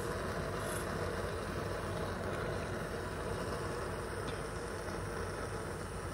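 Gas canister stove burner running with a steady hiss under a moka pot.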